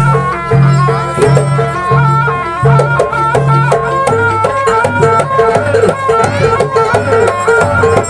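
Live jaranan music from a Javanese gamelan-style ensemble: hand-drum strokes over a repeating low pulse and a steady melodic line. The low pulse drops in pitch about four seconds in.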